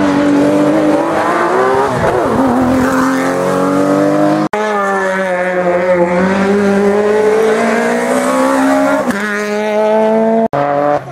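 Rally cars' engines revving hard through a tight bend, one car after another, the engine pitch falling and climbing again. The sound breaks off sharply twice, about four and a half seconds in and near the end, as one car's run gives way to the next.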